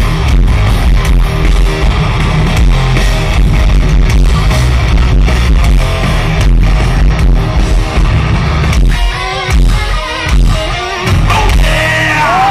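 Heavy metal band playing live through a festival PA, heard from within the crowd: distorted electric guitars, bass and pounding drums. Near the end the music breaks into a series of sharp stop-start hits, then settles into a held chord with a bending high tone.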